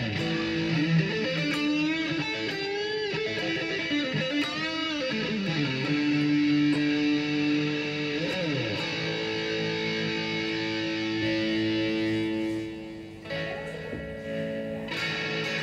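Ibanez RG655 electric guitar played through a Marshall MG15CF amp and Boss ME-25, with its volume knob rolled up to a fully distorted tone. It plays a lead line with string bends and vibrato, then long sustained notes. The level dips briefly about thirteen seconds in.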